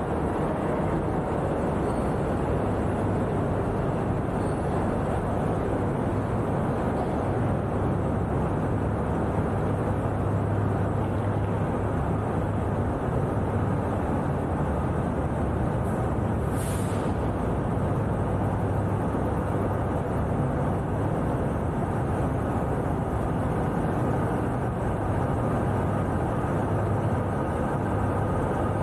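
Steady background noise of vehicle engines running, with a constant low hum, and a short hiss about two-thirds of the way through.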